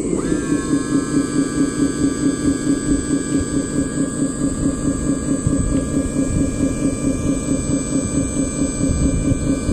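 Remote-control model dump truck tipping its loaded bed: a steady electric whine from the lift mechanism over a low, rhythmic throb of about three or four beats a second.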